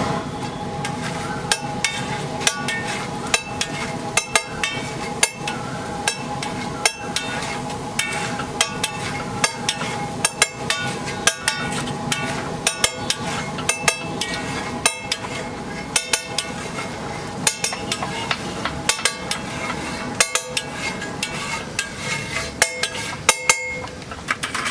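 Metal cooking utensils tapping and clinking against each other and the pan, in sharp irregular knocks of one to several a second, over a steady background hum.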